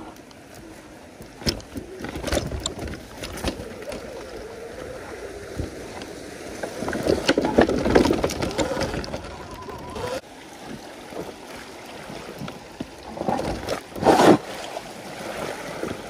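Segway X260 electric dirt bike ridden over a rough, rocky trail: tyres rolling over dirt and stones, with many sharp knocks and rattles as it hits rocks. There is a louder rough stretch about halfway through and a loud burst near the end.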